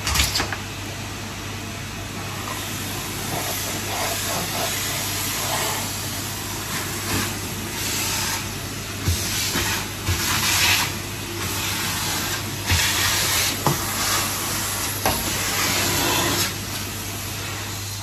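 Henry cylinder vacuum cleaner running steadily, its suction hiss surging louder several times as the nozzle is worked along a wooden floor, with a few short knocks.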